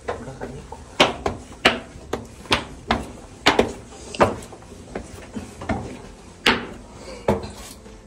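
Footsteps climbing a spiral staircase: sharp, uneven knocks, a little more than one a second, echoing in the narrow brick stairwell.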